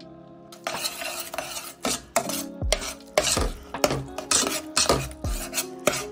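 Metal spoon stirring and mashing soft cooked yellow split peas in a stainless steel saucepan: wet scraping strokes against the pan, about three a second, starting about half a second in.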